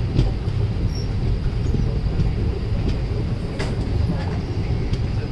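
A moving train running along the track: a steady low rumble from the wheels and coach, heard at an open doorway, with a few faint clicks.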